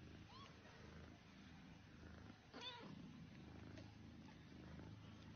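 Faint cat purring, with two short high-pitched mews from newborn kittens: a faint rising one about half a second in and a louder one near the middle.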